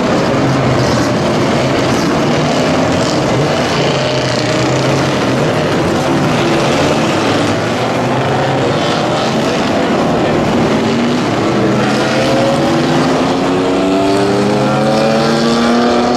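A field of 1955–1962 vintage GT race cars running together at low speed on a rolling race start, many engines layered into one steady din. Near the end several engine notes climb as the cars begin to accelerate.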